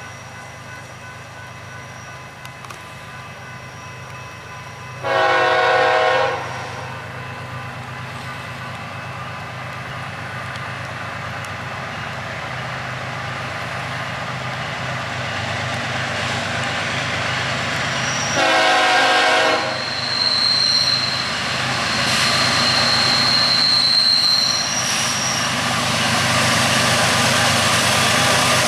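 An approaching BNSF freight train led by a GE ES44DC diesel locomotive, its engine rumble growing steadily louder as it nears. The locomotive's air horn sounds a long blast about five seconds in and a shorter one about eighteen seconds in. A thin high tone is heard briefly after the second blast.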